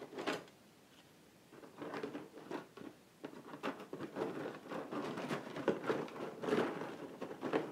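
Rustling with light clicks and soft knocks as things are rummaged through by hand, starting after a quiet second or so and going on irregularly.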